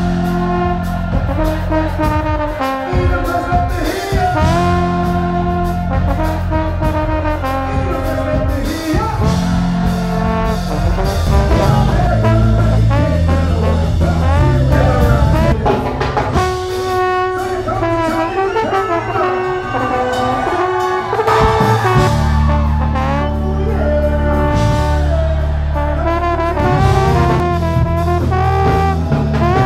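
Trombone playing close to the microphone, held notes and melodic phrases, over a live band's bass line and drums.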